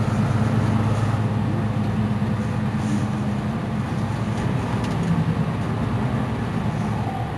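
Mercedes-Benz Citaro C2 city bus standing with its engine idling: a steady low hum.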